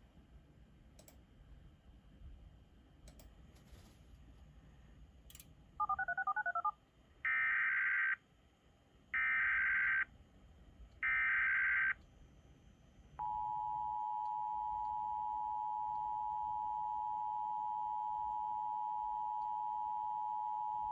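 Emergency Alert System header for a Law Enforcement Warning. After a brief warbling tone, three short bursts of SAME digital data tones each last under a second. About thirteen seconds in, the steady two-tone EAS attention signal (853 and 960 Hz) starts and holds for about eight seconds.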